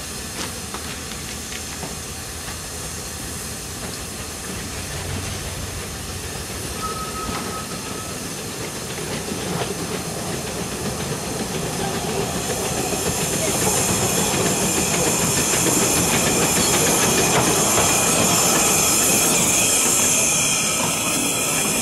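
A narrow-gauge steam locomotive standing and hissing steam. From about halfway in a second narrow-gauge steam locomotive, the W.G. Bagnall 2-4-0 tank Polar Bear, comes in hauling open passenger carriages, getting steadily louder as it passes, with the wheels clacking over the rail joints.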